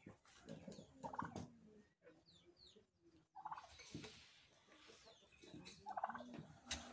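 Tom turkey gobbling three times, each a short rattling call. A sharp click near the end.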